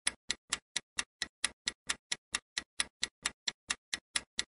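Countdown timer sound effect: steady clock-like ticking, about four to five ticks a second, marking the time left to answer.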